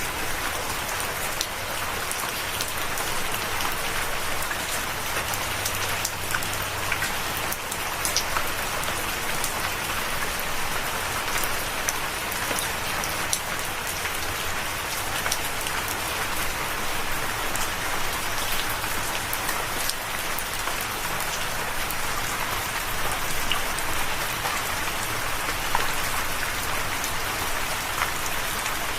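Steady rain falling on a surface, a dense even hiss with scattered individual drops ticking through it.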